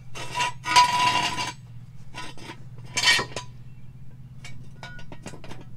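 Steel jack stand scraping and clanking on concrete as it is set under the truck's frame, with a ringing metallic note in the first scrape, another short clank about three seconds in, and a few light clicks near the end.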